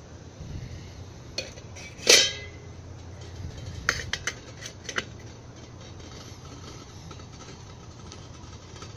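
A small stainless-steel pot set down onto the rim of a metal pellet stove with one loud ringing clank about two seconds in, then its lid clinking several times as it is settled on.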